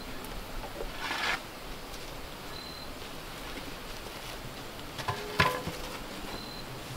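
A steel shovel scoops and tosses loose dirt once, about a second in. About five seconds in the shovel is dropped on the ground with a sharp metallic clank and a brief ring.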